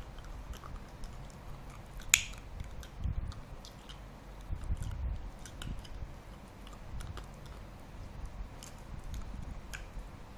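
Welsh Corgi puppy chewing a plastic bottle cap: irregular clicks and crunches of teeth on plastic, with one sharper, louder click about two seconds in.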